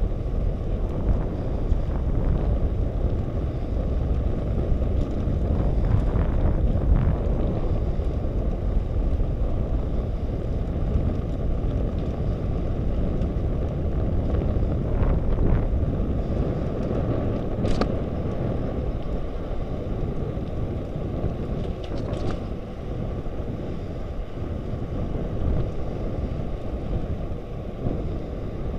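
Wind rushing over the microphone of a camera on a moving bicycle: a steady low rumble with a few faint clicks.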